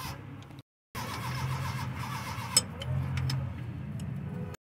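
Toyota 1HD turbo diesel engine running steadily at idle after its injection pump timing has been advanced, with a single sharp click about two and a half seconds in. The sound drops out twice to silence at edit cuts.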